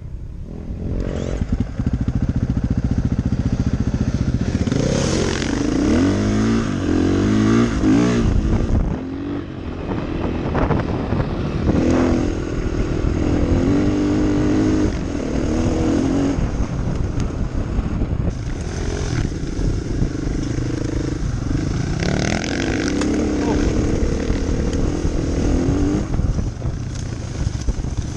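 KTM 500 EXC single-cylinder four-stroke enduro motorcycle being ridden on a dirt track, its engine pitch rising and falling as the rider rolls on and off the throttle and shifts gears.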